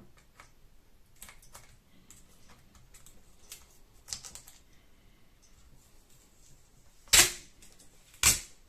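Plastic battery pack casing being handled on a bench: scattered light clicks and rattles, then two sharp knocks near the end, about a second apart.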